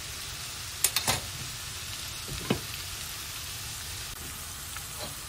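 Steady frying sizzle from sliced onions and carrots cooking in a pan. About a second in there are two sharp metal clicks from tongs against the pot, and a short ringing knock about two and a half seconds in as the glass lid is set on the pot.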